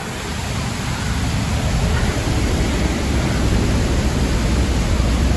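Loud, steady rushing roar of a large waterfall, El Pailon del Diablo, with a deep low rumble under the hiss of falling water and spray.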